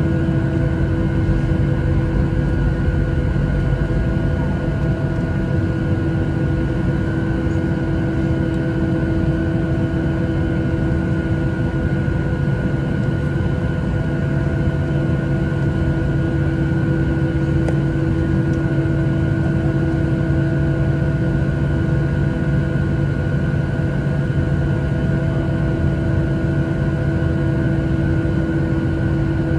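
Steady cabin drone inside a Boeing 737-800 standing still on the ground with its CFM56-7B engines idling: an even low rumble carrying several constant humming tones.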